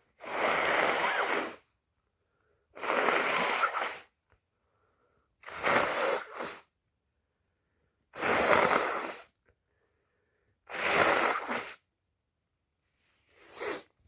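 A person sneezing over and over: five loud sneezes about every two and a half seconds, then a weaker sixth near the end.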